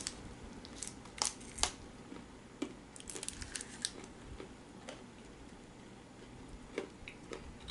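Snack wrapper crinkling and a few sharp snaps as a frozen Oreo chocolate bar is unwrapped and bitten into over the first four seconds, then only a couple of faint clicks.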